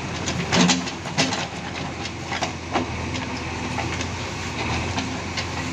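JCB 3DX backhoe loader's diesel engine running steadily as the backhoe arm scoops and lifts a bucket of earth, with several sharp knocks and clanks in the first three seconds.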